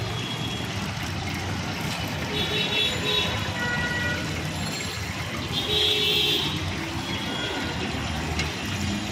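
Busy street traffic noise with two short horn toots a few seconds apart, the second one the louder.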